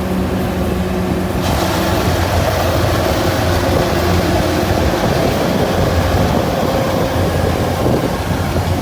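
Rice combine harvester running steadily with an even low engine hum. A broader rushing noise joins it about a second and a half in.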